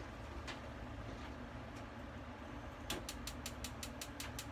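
Gas stove burner igniter clicking rapidly, about six sharp clicks a second for about two seconds starting near the three-second mark, as the burner is lit under a saucepan. A steady low hum runs underneath.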